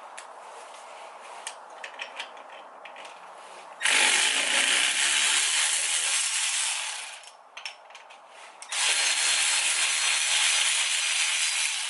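Cordless power tool driving bolts out of the engine's front end, running in two bursts of about three seconds each with a few metallic clicks between them.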